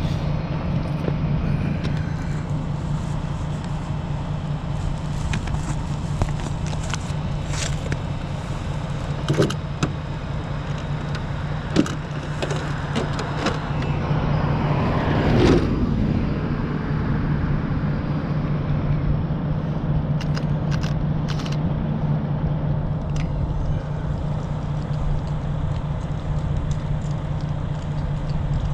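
Car engine idling steadily, with scattered clicks and a brief whine that falls in pitch about halfway through.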